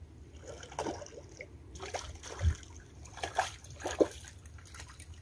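A hooked tilapia thrashing at the water's surface as it is pulled in to the shore, in several separate splashes, the loudest near the end. A dull thump comes about halfway through.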